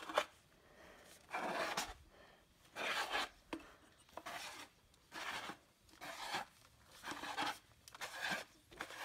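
Hand-held pipe beveling tool shaving the outer edge of a cut PVC pipe end, in about eight short rasping scrapes roughly one a second.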